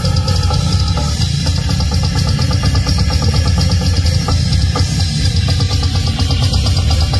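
Metal band playing live: guitars and bass over a fast drum-kit beat, loud and continuous.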